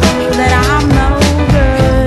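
Background music with a steady beat: drums, a low bass and a wavering melody line.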